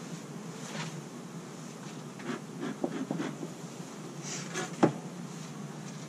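Honeybees humming steadily around open hives, with short hissing puffs from a bee smoker's bellows. Several light knocks and clicks of equipment being handled come midway, and one sharp knock, the loudest sound, comes near the end.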